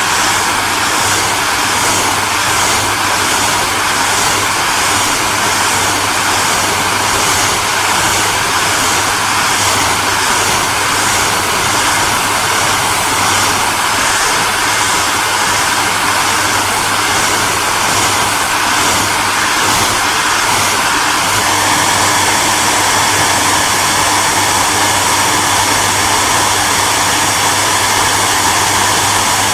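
Hair dryer running steadily: a constant rush of blown air over a low motor hum, with a faint high whine. The tone shifts slightly about two-thirds of the way through.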